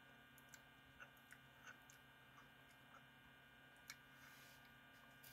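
Near silence: a faint steady electrical hum with a few soft, scattered clicks, the clearest about four seconds in.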